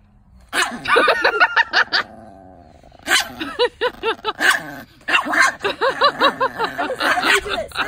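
Chihuahua yapping and snarling in rapid high bursts, several a second, in two bouts with a short break near two seconds. She is guarding her pig ear against hands in baseball gloves reaching for it.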